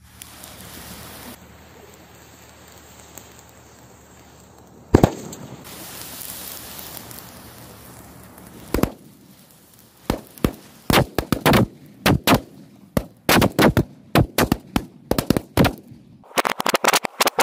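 Black-powder trail hissing as it burns toward two rows of bullet bomb firecrackers, then a single bang about five seconds in and another near nine seconds. From about ten seconds the firecrackers go off in a rapid, irregular string of loud bangs, densest near the end.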